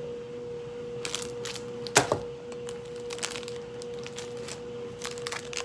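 Plastic candy wrapper being handled and crinkled, a scatter of short crackles with the sharpest one about two seconds in. A steady hum tone runs underneath.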